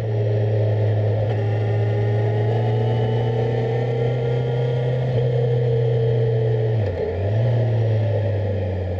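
Kawasaki Z1000SX's 1043 cc inline-four engine running under way at steady moderate revs, the note sagging slowly, then dipping sharply and picking up again about seven seconds in. Road and wind rush underneath.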